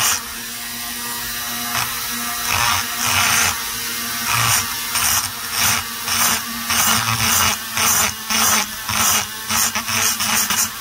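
Handheld rotary tool running steadily with a small burr, grinding the intake port of an Echo CS-670 chainsaw cylinder; the cutting noise comes and goes in repeated short gritty bursts, one to two a second, as the burr is worked into a corner of the port.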